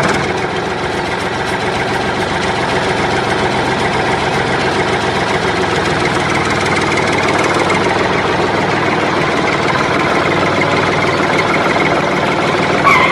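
Small model engine of a miniature water-pump rig running steadily at a constant speed, with a fast, even clatter.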